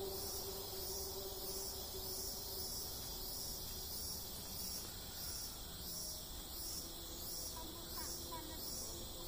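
Chorus of forest insects trilling high-pitched, pulsing evenly about twice a second.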